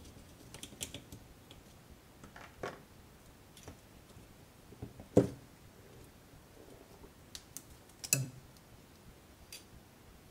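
Scattered small clicks and knocks of hands handling and lifting apart the carbon-fibre frame plates of an ImmersionRC Vortex quadcopter during disassembly, with three sharper knocks spread through.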